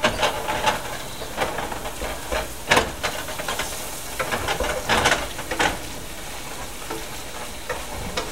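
A whisk clattering and scraping irregularly against a frying pan while onions and butter sizzle underneath, as flour is stirred in a little at a time to make a roux.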